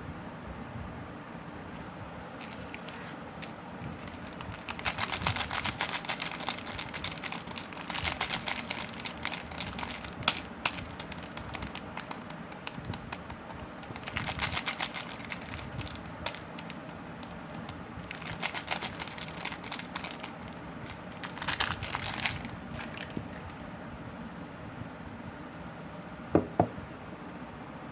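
Packaging crinkling as it is handled, in about five separate crackly bursts of a second or two each, with a sharp click near the end.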